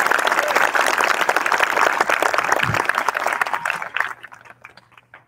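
Audience applauding, a dense patter of many hands that dies away about four seconds in and leaves a few scattered claps.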